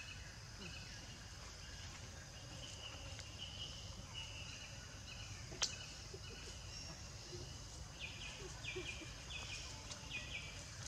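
Forest ambience: short high chirping calls repeating over a low steady rumble, with a run of four quick chirps about eight seconds in. A single sharp click sounds a little past halfway.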